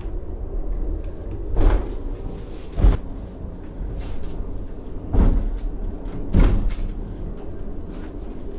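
Funicular tram car running: a steady low rumble with loud clunks in two pairs, the second of each about a second after the first, a few seconds between the pairs.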